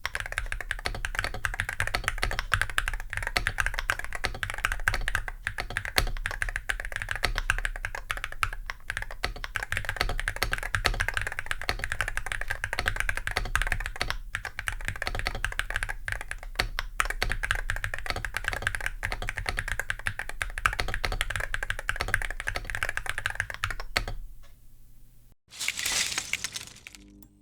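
Fast continuous typing on an Akko MOD007 HE Year of the Dragon keyboard, a metal-chassis board with Akko Astrolink Hall-effect magnetic switches: a dense run of keystroke clacks with a few brief pauses, stopping about 24 seconds in. A short noisy whoosh follows near the end.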